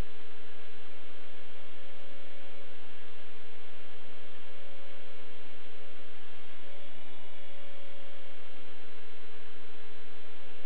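Small quadcopter drone's motors and propellers humming steadily in flight, with a brief shift in pitch about seven seconds in.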